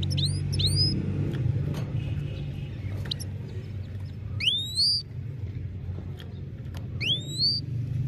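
Caged European goldfinch giving loud, rising whistled calls: two quick ones at the start, then single longer sweeps about four and seven seconds in, over a steady low hum.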